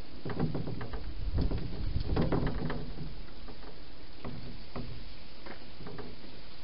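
Wild hedgehog feeding at a bowl inside a plastic feeding box: a quick run of crunching clicks and knocks in the first few seconds, then a few single clicks, over a steady hiss.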